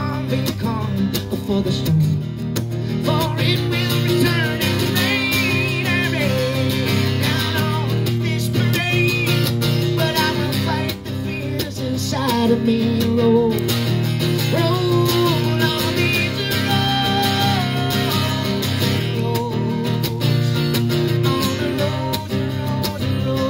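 Live acoustic guitar strummed steadily through a song, with a man singing over it.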